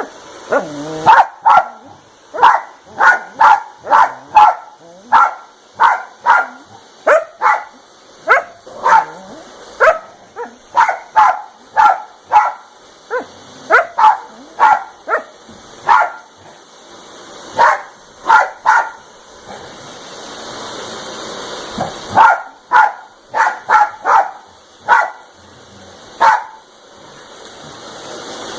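Dog barking again and again at a vacuum cleaner, about one to two sharp barks a second in runs. The barks stop for a few seconds about twenty seconds in while a steady rushing noise swells, and the same rushing returns near the end.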